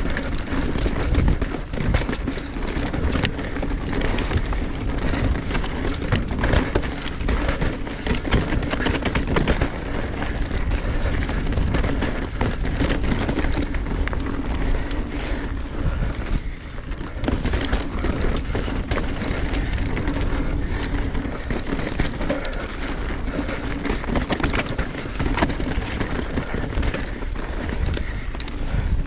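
Mountain bike descending a rocky trail: continuous rushing noise of the tyres on dirt and rock, with frequent short rattles and knocks from the bike over the rough ground.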